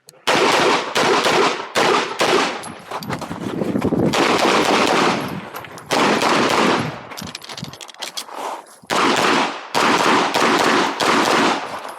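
Rapid strings of 9mm pistol shots, a KMR Spectra competition handgun firing Geco 124-grain ammunition, with short pauses between strings as the shooter moves between target arrays during an IPSC stage.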